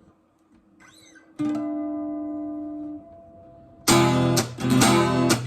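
Acoustic guitar: a single note plucked about a second and a half in rings and fades, then strummed chords start loudly about four seconds in.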